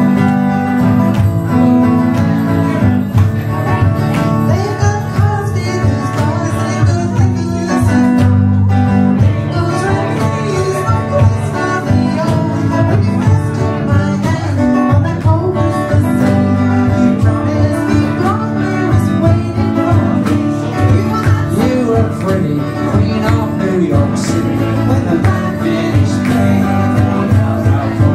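Small live band playing in a bar: red hollow-body electric guitar with a second guitar, and some singing.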